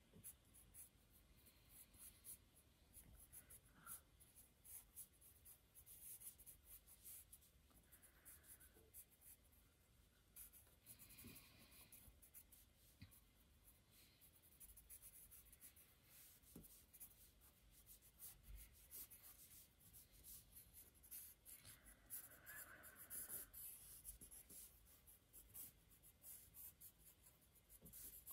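Pen scratching on paper in many short, quick strokes, faint.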